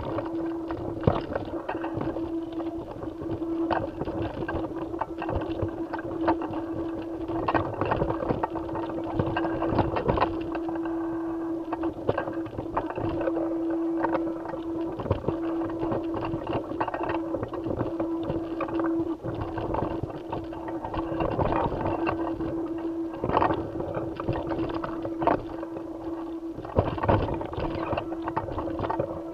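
A steady hum holding one constant tone, with irregular clicks and knocks throughout.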